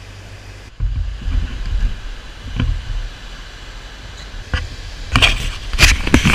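Wind rumbling on the microphone over moving water, then a run of sharp splashes near the end as a hooked fish thrashes and leaps at the surface.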